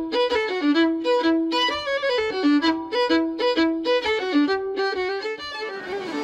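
Solo fiddle playing a brisk folk tune, a quick run of separate notes. Near the end, street noise fades in under the fiddle.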